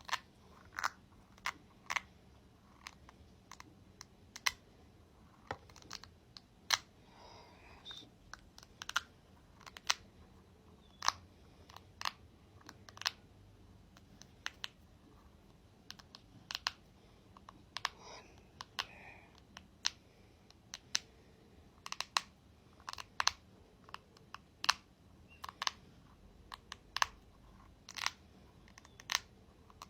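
Close-up tapping and clicking on a ball for ASMR: sharp, irregular clicks about one or two a second, with brief scratchy rustles in between.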